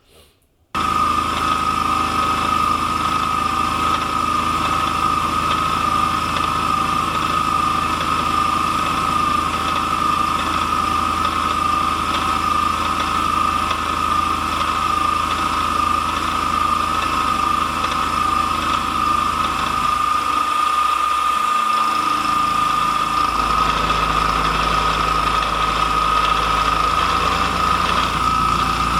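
CNC-converted Sieg SX2.7 mill face milling with its spindle and end mill cutting at a 200 mm/min feed: a steady, high-pitched cutting whine over a machine rumble. It starts abruptly about a second in, and the low rumble shifts around two-thirds of the way through.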